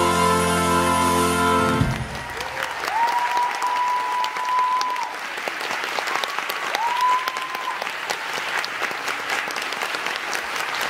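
A held final chord from the show's band cuts off abruptly about two seconds in, giving way to a theatre audience applauding and cheering. Three long, steady high calls rise above the clapping.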